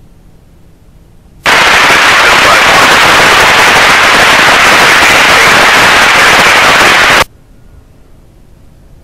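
Loud burst of railroad radio scanner static with no voice in it. It starts abruptly about a second and a half in, holds steady for about six seconds, then cuts off suddenly.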